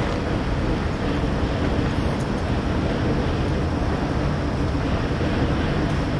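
Distant freight train led by diesel locomotives crossing a steel truss bridge: a steady low rumble of engines and rolling cars.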